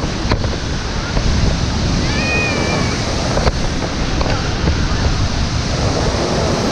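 Waterfall: falling water rushing as a loud, steady noise. A brief high-pitched call is heard about two seconds in.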